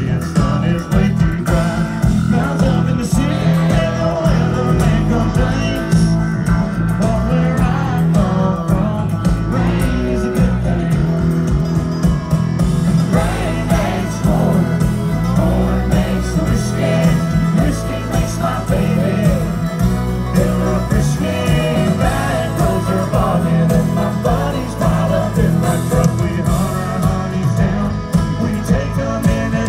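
Live country band playing loudly, a male lead singer over electric guitar, bass and drums, with a heavy low end. It is heard from inside the crowd through a phone's microphone.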